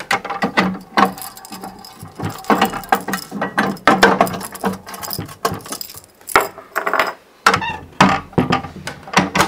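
The cabinet door of a BATM2 Bitcoin ATM being closed: a busy, irregular run of mechanical clicks, clunks and rattles.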